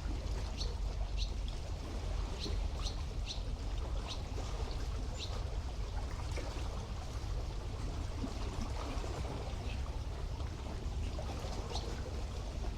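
Sea water lapping and washing at the shore of a bay in a steady wash, with a small bird giving short high chirps now and then, most of them in the first half.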